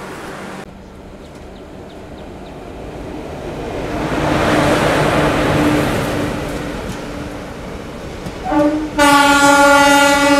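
Train rumble swelling and fading, then a locomotive air horn near the end: a short toot followed at once by a long, loud blast.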